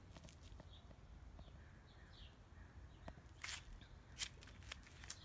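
Near-silent outdoor quiet with a few faint bird chirps in the first half and a handful of soft footsteps on concrete later on.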